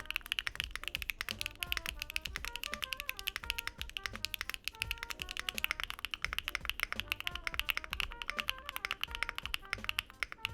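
Fast, continuous typing on a mechanical keyboard fitted with HMX Cream Latte linear switches: many rapid keystrokes with no let-up, over instrumental jazz music.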